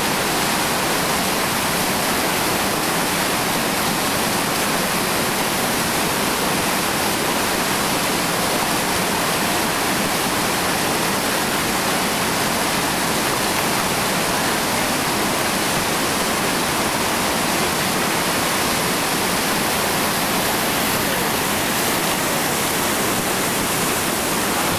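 Whitewater rapids rushing steadily over and around boulders: an even, unbroken noise of churning water.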